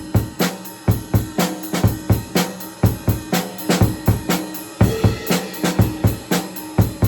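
Acoustic drum kit played in a steady beat, with kick drum, snare and cymbals struck about twice a second and lighter strokes in between.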